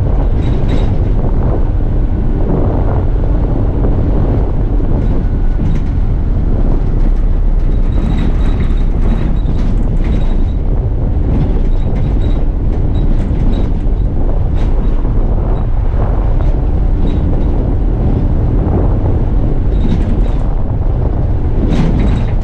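Bus on the move, heard from the driver's seat: a steady low engine and road rumble with scattered clicks and rattles from the bodywork.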